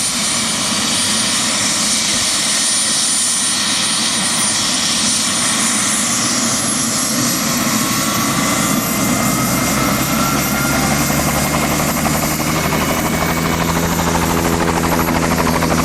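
Helicopter running close by: a loud, steady rush of turbine and rotor noise with a high whine that rises in pitch about six seconds in, then a low, even rotor beat that grows stronger through the second half.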